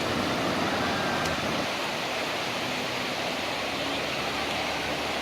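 Steady rushing noise of surf with wind on the microphone.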